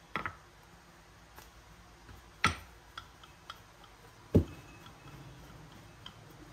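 Light knocks and taps on a kitchen work surface as bread dough is rolled out: three clear knocks about two seconds apart, the last one deeper, with a few fainter ticks between.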